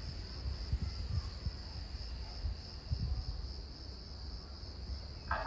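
Crickets chirring in a steady high trill over a low background rumble.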